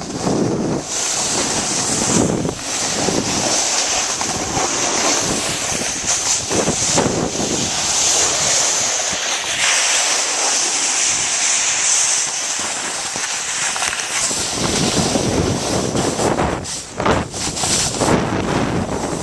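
Wind buffeting the camera microphone during a snowboard run, with a steady bright hiss of the board sliding over snow. The low rumbling gusts ease off in the middle and come back strongly near the end.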